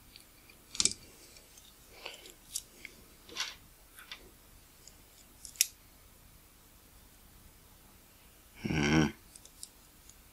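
Scattered light metallic clicks and taps as a precision screwdriver tip and a tiny lens screw are handled together, about half a dozen in the first six seconds. A short vocal grunt near the end is the loudest sound.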